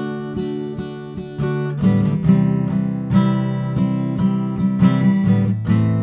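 Acoustic guitar strummed in a steady rhythm, with chord changes about two seconds in and again near the end. It is picked up by an AKG Perception 200 condenser microphone close to the soundhole.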